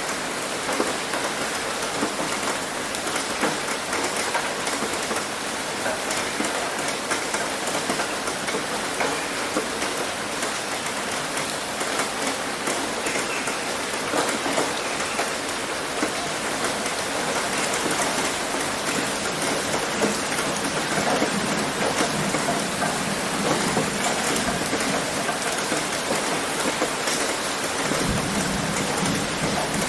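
Heavy rain hitting a roof: a dense, steady patter of drops. A low rumble comes in near the end.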